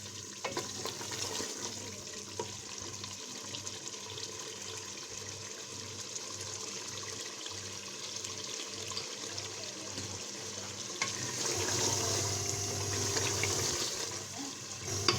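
Mutton, potatoes and masala sizzling in hot oil in an open pressure cooker as they are fried (bhunai). It is a steady hiss that grows a little louder about eleven seconds in.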